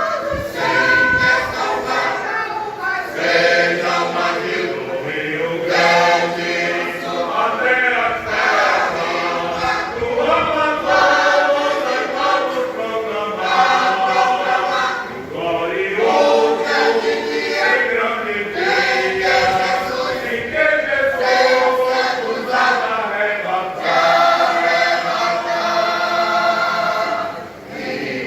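Choir singing a gospel hymn, phrase after phrase, with a brief breath between phrases near the end.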